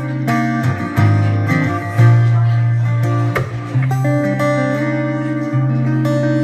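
Acoustic guitar strummed, its chords ringing and changing every second or so.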